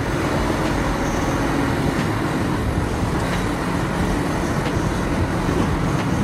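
Cat 6015B hydraulic mining excavator working, its diesel engine and hydraulics running steadily under load while it dumps rock and earth from its bucket into a dump truck.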